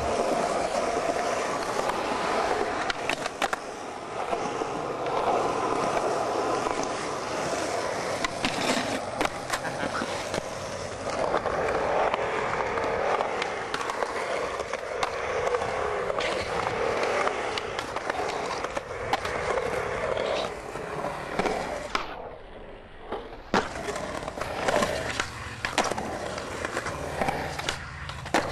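Skateboard wheels rolling on concrete, with the sharp clacks and snaps of tricks: tail pops, the trucks scraping along a ledge, and wheels slapping down on landings. The rolling sound drops out briefly near the end, then picks up again.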